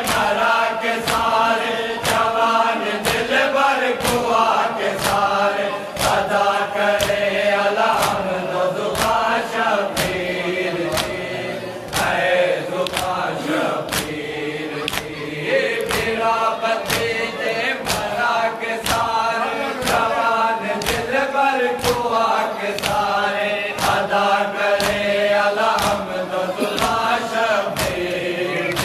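A group of men chanting a noha together, with a steady beat of sharp slaps from rhythmic chest-beating (matam), more than one slap a second.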